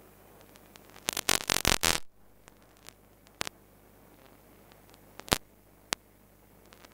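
A faint steady hiss with a burst of crackling clicks about a second in, then a few single sharp clicks. No race car engines are heard.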